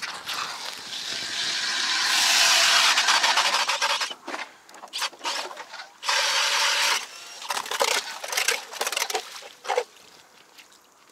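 Hand ice auger cutting into river ice: a swelling run of scraping and crunching, then a series of irregular scrapes.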